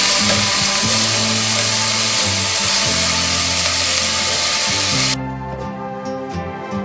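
Chopped onions sizzling in hot oil in a stainless steel pot as they are stirred with a wooden spoon, a loud steady hiss over background music. The sizzle cuts off suddenly about five seconds in, leaving only the music.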